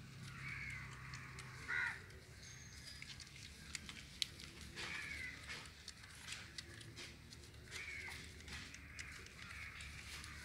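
A few short, arching animal calls a few seconds apart, the loudest about two seconds in, with scattered small clicks between them.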